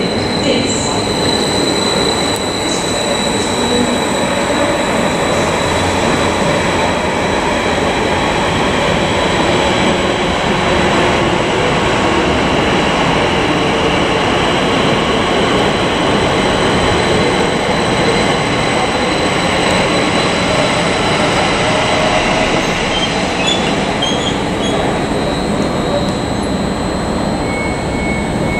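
Class 37 diesel-electric locomotive running as it approaches slowly, its English Electric V12 engine under a steady din of wheels on rail, with a high squeal from the wheels on the curved track. A row of short high beeps sounds near the end.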